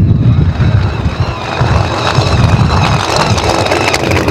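Pro Mod '55 Chevrolet Bel Air drag car's engine running loudly at the start line, a steady high whine over a deep rumble. Rapid crackling builds up over the last second or so.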